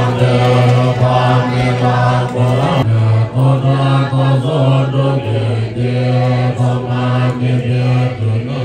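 A large group reciting Tibetan Buddhist prayers in unison from prayer texts. It is a monotone chant on one low pitch that drops briefly to a lower note every few seconds.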